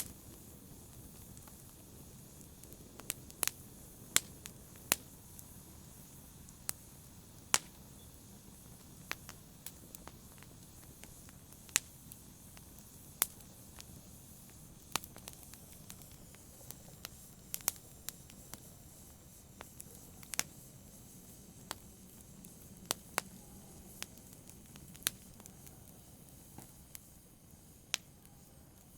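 Wood fire crackling: irregular sharp pops and snaps, some louder than others, over a low steady rush of burning.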